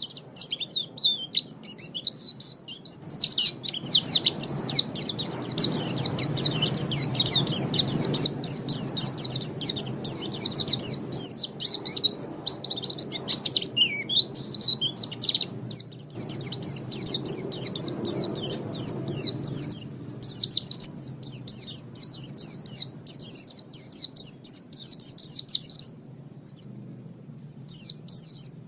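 Pleci (white-eye) singing a long, rapid, high-pitched twittering song over a faint low background rumble. The song breaks off near the end and resumes briefly.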